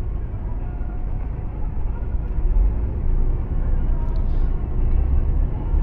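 Steady low rumble inside a lorry cab at motorway speed: engine drone mixed with tyre noise on a wet road, getting a little louder about two seconds in.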